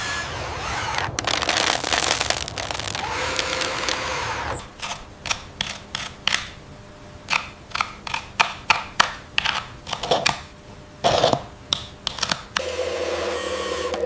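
Building-work machinery sounds: a steady whirring motor, then a run of irregular sharp knocks and clacks, like hammering and parts being set down, then a steady motor hum starts again near the end.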